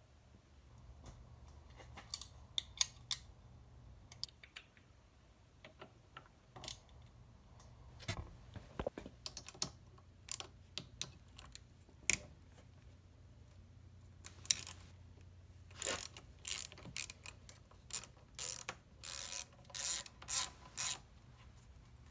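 Socket ratchet clicking as bolts on a small mini-bike engine's cylinder head are worked loose, with scattered metallic clicks and clinks of tools. Near the end comes a quick run of short ratcheting strokes, about two a second.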